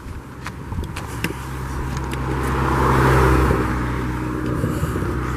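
A motor vehicle passing by: its engine and tyre noise grow louder, peak about three seconds in, then fade.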